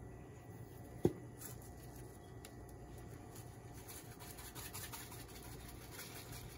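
A single sharp click about a second in, then faint scratchy rustling from about four seconds in as dry seasoning is shaken from a container over skewered meat, over a low steady hum.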